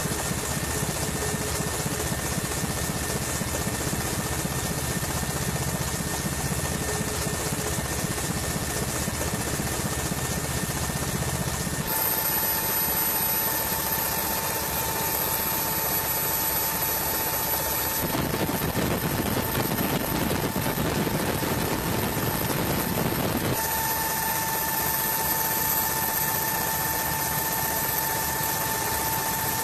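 Steady aircraft engine noise, with a high steady whine that sets in about twelve seconds in, drops out around eighteen seconds and comes back near twenty-four seconds.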